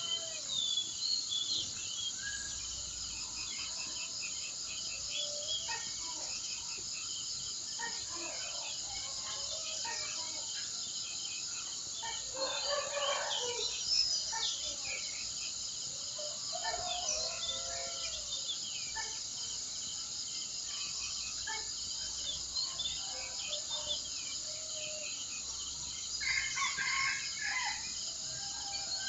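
Birds chirping and calling over a steady, high insect drone, with a louder, lower call about halfway through and another burst of calls near the end.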